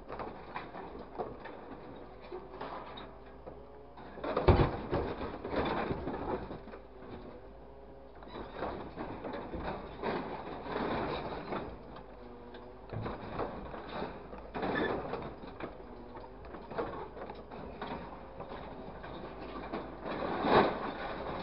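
Grapple truck's crane working an orange-peel grab, loading scrap wood, metal and debris into the truck bed: irregular clanks, crashes and clatter of material landing, loudest about four and a half seconds in and again near the end, over a faint steady whine.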